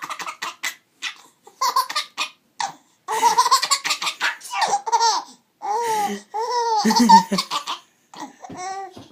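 A small child laughing hard in several bouts of high-pitched giggles and belly laughs with short pauses between them, set off by a sneeze.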